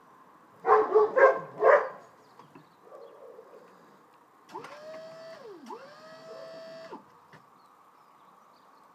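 A dog barks three times in quick succession, the loudest sound. About halfway through, the electric hydraulic pump of a homemade tilt-and-trim ram whines up to a steady pitch, dips once, runs up again and cuts off suddenly as it moves the 55 hp Mariner outboard.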